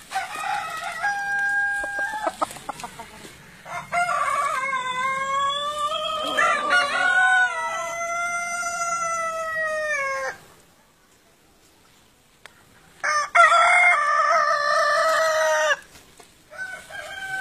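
Long-tailed roosters crowing, four crows in all: a short one at the start, a long drawn-out crow of about six seconds whose pitch falls at the end, another crow about 13 seconds in, and one beginning just before the end.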